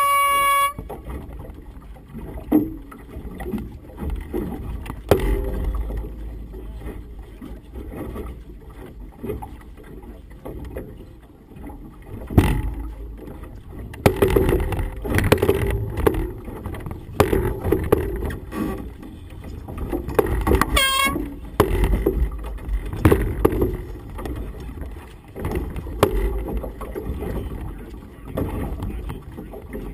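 A single air-horn blast lasting about a second at the start: the race committee's sound signal as the blue-and-white P (preparatory) flag goes up. After it, gusty wind rumbles on the microphone, with the flags flapping and snapping in it.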